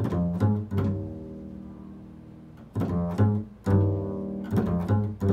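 Double bass played pizzicato in an improvised line: three plucked low notes in the first second, each left to ring and die away, then a quicker cluster of plucked notes from just under three seconds in.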